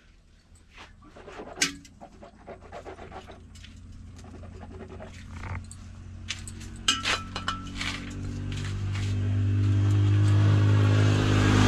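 Scattered clicks and knocks, then a motorcycle engine running and growing steadily louder from about eight seconds in.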